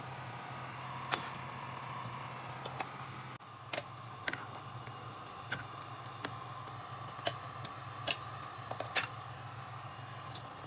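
Pot of diced potatoes at a rolling boil, bubbling under a steady low hum, with a slotted spoon scooping through the water. After an abrupt change about three seconds in, scattered clicks and knocks of a wooden spatula against a steel pot as a thick creamy soup is stirred.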